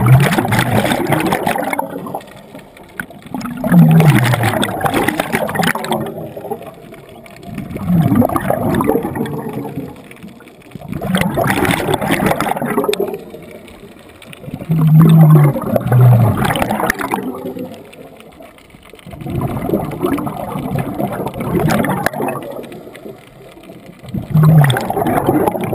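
Scuba diver breathing through a regulator underwater: about seven loud, bubbling exhalations at a steady pace of roughly one every four seconds, with quieter stretches between breaths.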